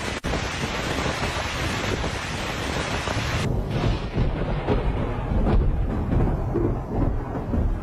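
Fast, muddy floodwater rushing in a torrent, a steady heavy rumble and hiss. About three and a half seconds in, the sound turns duller as the higher part drops away.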